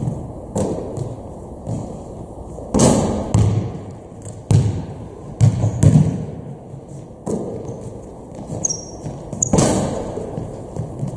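Basketballs bouncing and thudding on a hardwood gym floor during a shooting drill, a string of irregular thuds that echo around the hall. A short high sneaker squeak comes about three-quarters of the way through.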